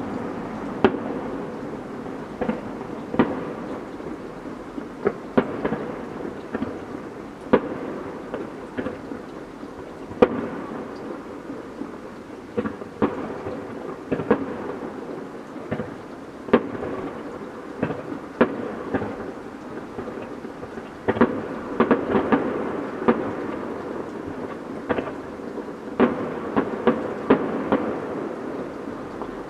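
Fireworks display: single bangs go off every second or so over a continuous crackling hiss. Quicker runs of crackling bangs come about two-thirds of the way through and again near the end.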